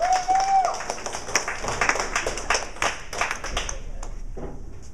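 Audience clapping and whooping: a few high rising-and-falling whoops at the start over dense clapping, which thins out and dies away about four seconds in.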